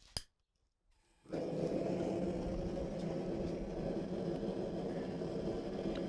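A single click of a lighter wand, then about a second later the propane burner of a Mr. Volcano gas forge lights and runs with a steady rushing noise as the forge comes up to heat.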